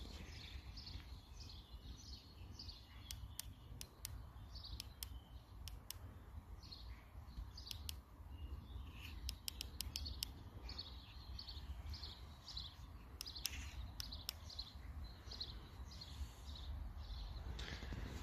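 Small birds chirping in quick, short repeated notes throughout, over a steady low rumble on the microphone, with a few sharp clicks.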